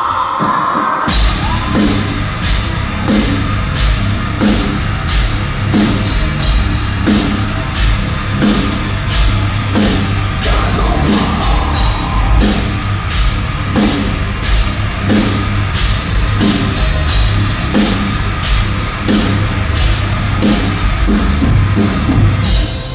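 Heavy rock band playing live, without vocals: after a quieter first second the full band comes in, with distorted guitars, bass and a drum kit hitting a steady beat about twice a second. The band drops back briefly near the end.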